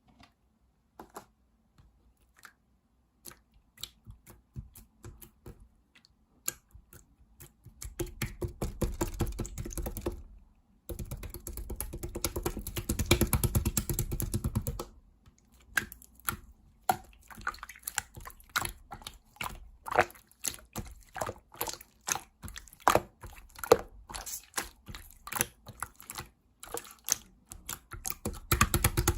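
Clear slime being handled, squeezed and poked: scattered small sticky clicks and pops, with two spells of dense, rapid crackling starting about eight and eleven seconds in.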